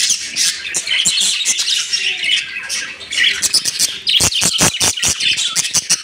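A flock of caged budgerigars chattering and squawking without pause. About four seconds in there is a quick run of sharp taps.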